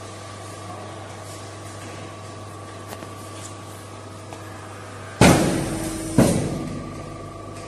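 Steady electrical hum of a running silicone embossing machine. About five seconds in, two loud sudden noises come a second apart, each fading over about a second.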